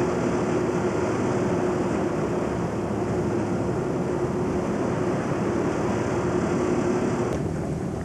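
Tour boat's engine running with a steady drone, mixed with rushing wind and water noise; the higher part of the noise drops away about seven seconds in.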